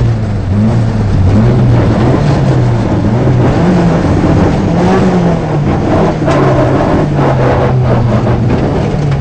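Rally car engine heard from inside the cabin, revving up and dropping back again and again as the driver works through the gears on a gravel stage, over a steady rumble of tyres and gravel. A few short knocks in the second half.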